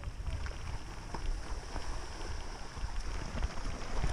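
Camera-mounted audio of a bicycle riding on a gravel dirt road: a steady low rumble of wind and road vibration with scattered small ticks and clicks.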